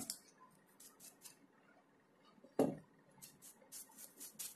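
Faint handling noise at a worktable: a small click at the start, a dull knock a little over halfway through, then a quick run of soft rustles near the end.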